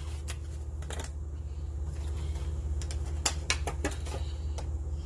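A few light clicks and taps of small items being handled, with a quick cluster about three to four seconds in, over a steady low hum.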